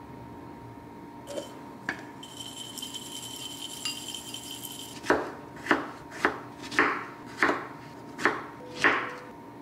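A santoku knife slicing strawberries on a wooden cutting board: seven sharp knocks, about one every two-thirds of a second, in the second half. Before that, granola poured from a glass jar into a bowl gives a few seconds of light rattling.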